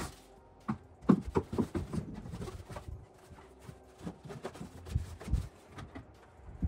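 Irregular knocks and light clatter of a long black ABS plastic drain pipe being handled and stood up against wooden framing, loudest about a second in, with another cluster near five seconds.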